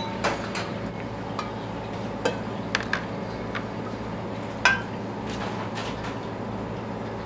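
Dishes and utensils clinking and knocking about five times, the loudest a little past halfway with a brief ring, over a steady low hum.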